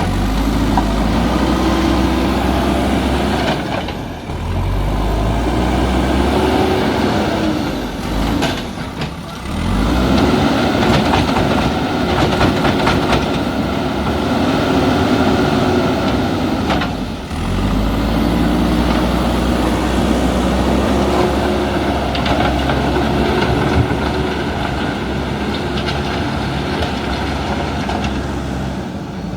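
Diesel engine of a JCB backhoe loader working under load, its revs repeatedly rising and falling over a few seconds at a time. The sound drops off briefly a few times.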